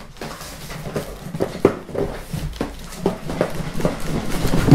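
Cardboard shipping box being pulled up and off a foam-packed computer case: a string of cardboard scrapes, rubs and knocks, ending in a loud knock.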